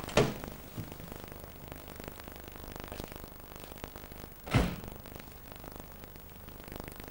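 Steady background hiss, broken by two dull thumps: one just after the start and a louder one about four and a half seconds in.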